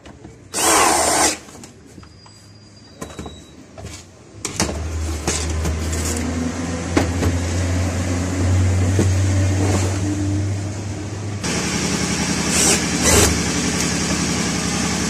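A Stanley cordless drill runs for under a second, driving a screw into the chainsaw's handle, followed by tool clicks. From about four and a half seconds in a steady low engine-like hum runs on, getting louder and noisier a few seconds before the end.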